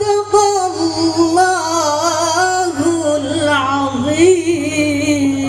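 A woman's voice chanting Qur'anic tilawah through a loudspeaker system: one long melismatic phrase of quick wavering ornaments and pitch steps, settling into a long steady held note near the end.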